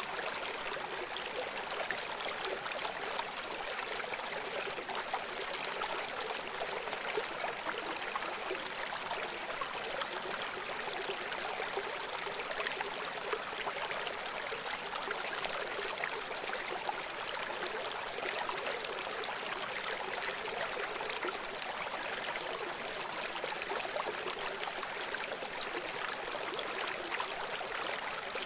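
Running water rushing steadily, like a stream: an even, hissy wash with no rumble beneath it.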